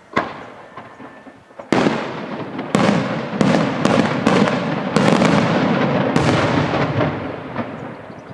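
Daytime aerial fireworks shells bursting overhead. A single sharp bang comes first, then about a second and a half later a rapid string of loud bangs, their echoes running together into one rumble that dies away near the end.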